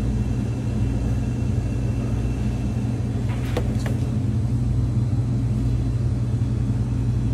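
Steady low machinery hum, with a couple of faint knocks about three and a half seconds in as a plastic tub of gochujang is set back on a shelf.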